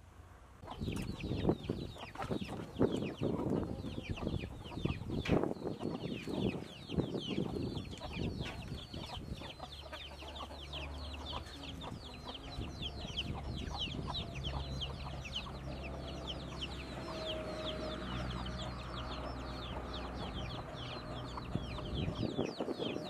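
Chickens clucking, with a dense run of short, high, quickly falling peeps throughout. Under them comes the rustle of leafy greens being handled in a woven basket, and a low steady hum comes in about ten seconds in.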